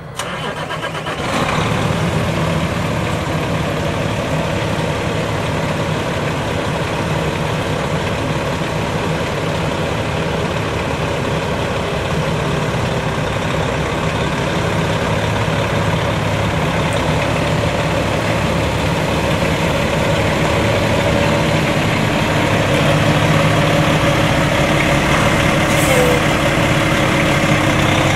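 Kenworth T660 heavy truck's diesel engine starting about a second in, then idling steadily.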